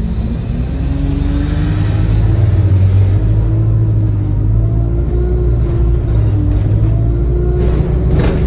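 ADL Enviro 200 single-deck bus heard from inside the saloon: engine and drivetrain running with a steady low drone and a whine that rises slowly in pitch. A short rush of noise comes near the end.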